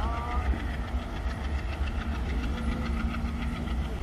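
Passenger train running along the track as it moves away, a steady low rumble.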